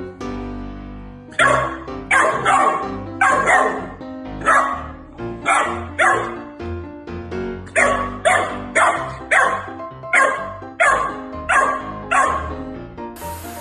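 Golden retriever puppy play-barking: a long run of short, sharp, high barks, about one or two a second, over background music. A spraying hiss cuts in near the end.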